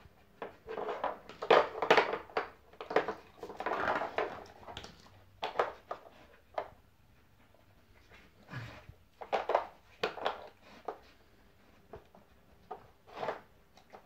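Dog working a Trixie Dog Activity Chess plastic treat puzzle: irregular bursts of nosing and sniffing, with knocks and scrapes of the plastic blocks and pieces being pushed about on the board, busiest in the first few seconds.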